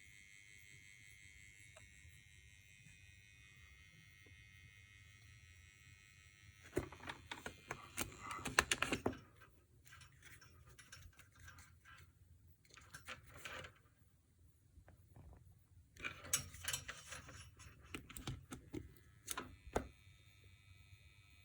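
The 9 V AC power adapter of an ART Tube MP V3 preamp gives off a steady high-pitched electrical buzz over a low hum; the owner worries it is a fault. After about seven seconds come several bursts of clicking and rattling handling noise. The high buzz drops out in the middle and comes back near the end.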